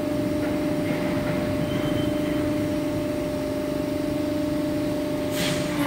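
Hydraulic pump unit of a CNC hydraulic guillotine shear running with a steady hum, with a brief sharp hiss shortly before the end.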